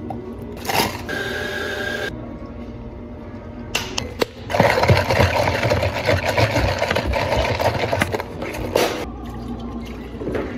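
Drink-making sounds: liquid poured into a plastic cup, with plastic cups and a dome lid being handled. A dense, noisy stretch runs for several seconds in the middle.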